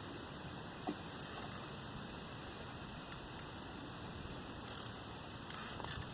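Steady background hiss with a few faint, short clicks and rustles, the last cluster near the end.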